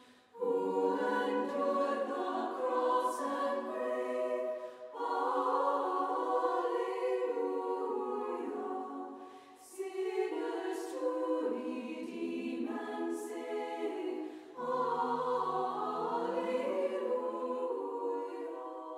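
A choir singing with sustained notes, in four phrases of about four to five seconds each.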